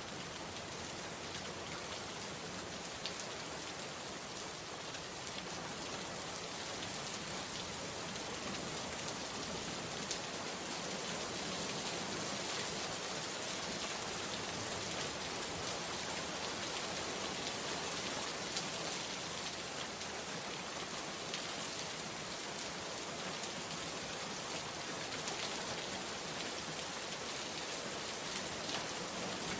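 Steady rain falling, an even hiss with scattered individual drops ticking on a hard surface.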